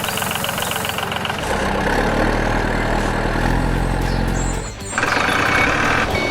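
A vehicle engine running, with a deep steady hum that starts about a second and a half in and cuts off shortly before five seconds. A harsher, rougher mechanical noise follows.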